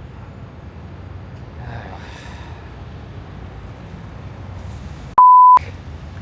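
A single editing bleep, a pure steady tone about half a second long, about five seconds in, with all other sound cut out around it; it is the kind of tone used to censor a word. Before it there is only faint, even background noise.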